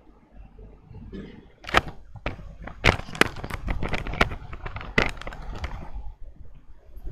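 A quick, irregular run of sharp clicks and knocks, about a dozen over three or four seconds, then dying away.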